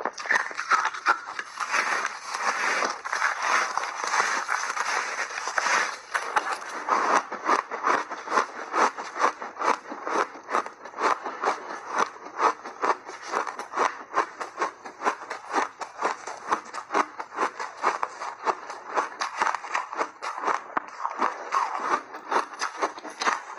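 Chewing refrozen block ice, close-miked: a fast, unbroken run of crisp crunches, about three or four a second, as the ice is bitten and ground between the teeth.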